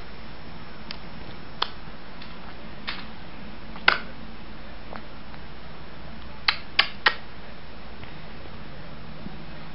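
Short, sharp clicks or smacks scattered over a steady faint hiss, with three in quick succession a little past six seconds in.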